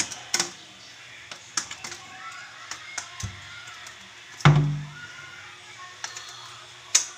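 A series of sharp knocks and clicks at irregular intervals, with one heavy thump about four and a half seconds in that rings briefly low.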